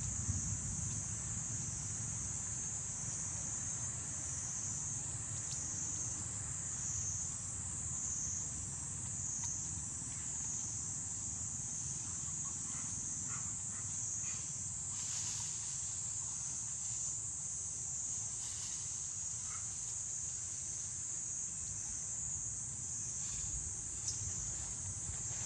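Steady, high-pitched insect chorus, swelling and easing slowly, over a low rumble, with a few faint scattered clicks.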